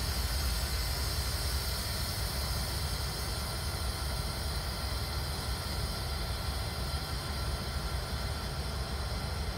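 Diesel-electric freight locomotive idling while standing still: a steady low rumble with a steady hiss above it.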